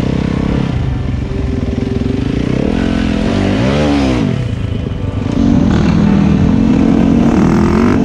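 Dirt bike engine running on a bush track, revving up and straight back down about four seconds in. About five and a half seconds in the sound gets louder as a second dirt bike's engine joins it alongside.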